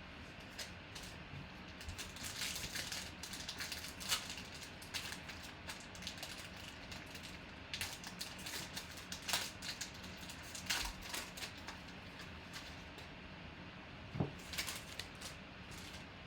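Trading cards and their packaging being handled at close range while a pack is opened and the cards are looked through: scattered rustles, crinkles and small clicks, with a few sharper clicks about two, four, nine, eleven and fourteen seconds in.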